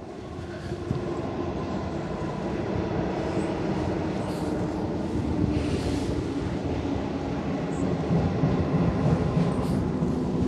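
A train running along an elevated rail viaduct: a steady rumble with a faint hum, slowly growing louder.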